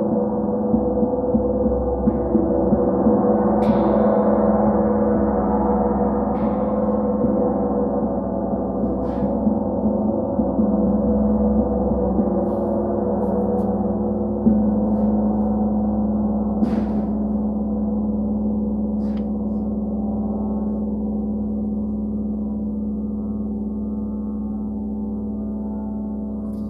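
A gong ringing in a sustained wash of many overlapping tones, kept going by occasional light strikes. The sound swells a little over the first few seconds and then slowly fades through the second half.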